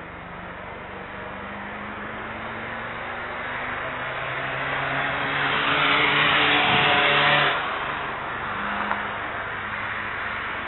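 A road vehicle passing close by: its engine and tyre noise grows to a peak about six to seven seconds in, dips in pitch and falls away sharply, with a small click a little later.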